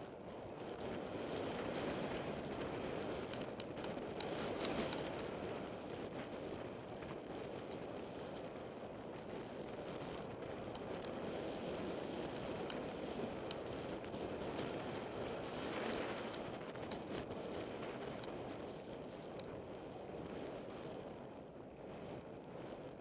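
Wind rushing over the microphone of a camera riding a mountain bike fast down a loose gravel trail, mixed with the rolling noise of tyres on gravel and scattered clicks and rattles from the bike. The rush swells a few seconds in and again about two-thirds of the way through.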